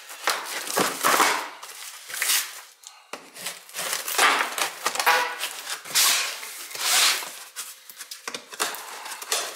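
Packing tape on a cardboard box being cut and ripped open, the cardboard flaps scraping and crackling as they are pried apart, in a run of short, irregular bursts.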